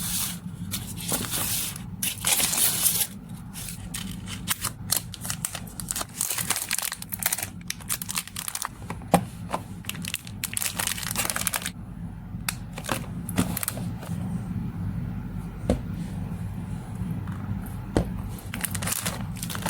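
Packaging material being handled while packing: plastic and paper crinkling and rustling in irregular bursts, with some tearing and scattered sharp clicks.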